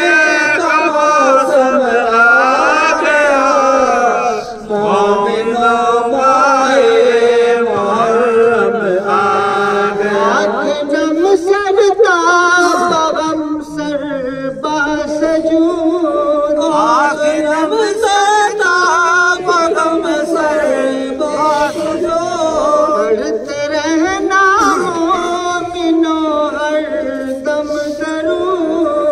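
Male voices singing a noha, a Muharram lament, in a chanting style. The long held notes bend up and down without a break.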